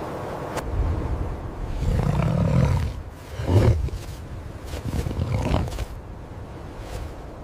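Deep animal growls, four swells in a row, the longest about two seconds in and the sharpest just after it.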